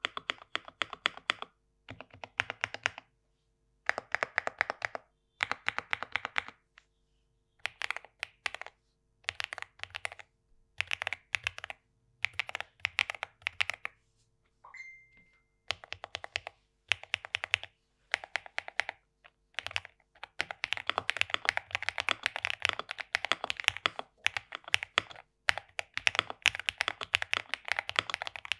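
Typing on an Akko MOD007 PC mechanical keyboard with Akko CS Piano switches, fully modded with tape layers on the PCB and under the switches for a thocky sound. Short bursts of keystrokes with pauses, then fast continuous typing from about 20 seconds in.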